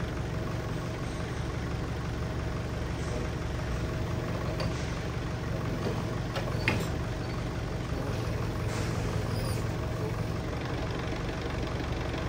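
Forklift engine running steadily at idle, with a couple of light clicks about halfway through.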